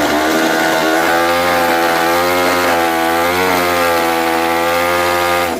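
Classic racing motorcycle engine running loud and held at a steady high speed, with a couple of brief dips. Near the end it is shut off, the note falling away as it winds down.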